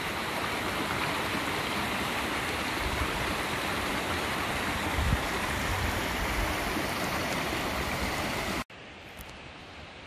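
Stream water rushing steadily over rocks. Near the end it cuts off abruptly, leaving a much quieter outdoor hush.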